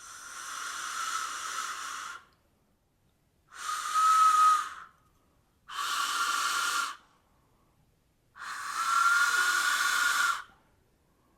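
A wooden four-chamber train whistle blown four times, each blast one to two seconds long, the second the loudest. Each blast is mostly breathy hiss with only a thin, faint whistle tone. The whistle is not sounding properly: the player thinks he is not blowing it hard enough.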